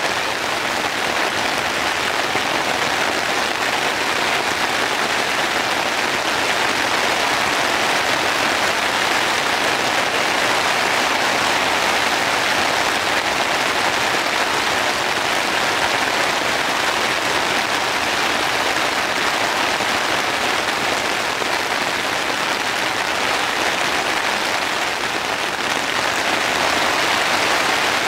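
Heavy rain falling steadily as an even hiss, with no let-up.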